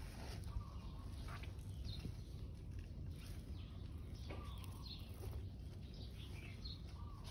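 Faint, scattered bird chirps, a few short calls every second or two, over a steady low rumble of background noise.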